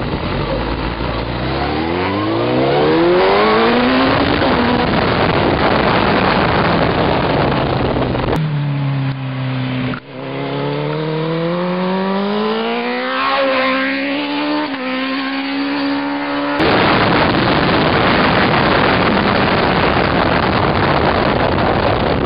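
2001 Suzuki GSX-R1000's inline-four engine accelerating hard, rising in pitch as it pulls through a gear, then buried under heavy wind rush on the on-board microphone. About eight seconds in, the sound switches to a sportbike heard from the roadside, revving up through the gears with a shift about ten seconds in. Its pitch then changes as it goes by, before the on-board wind rush returns near the end.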